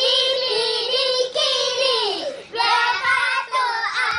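Children singing a phrase in long held notes that slide down in pitch and break into short sung lines.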